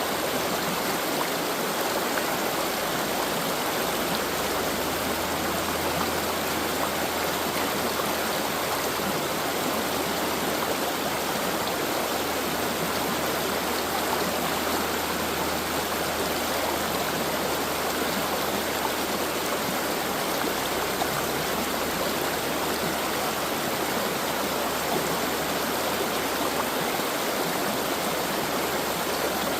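A stream flowing: a steady, unbroken rush of running water.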